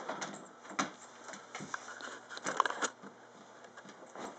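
A dog scrambling after a plastic wiffle ball: a scatter of light patters and sharp clicks from paws and the ball knocking about, the loudest cluster about two and a half seconds in.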